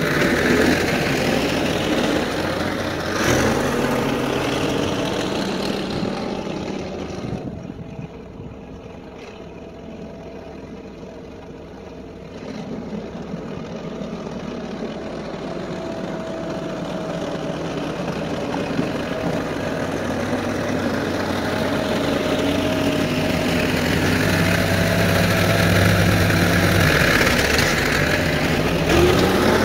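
Diesel engine of a Ford 5610S tractor running steadily. It fades as the tractor moves away and grows louder again as it comes back.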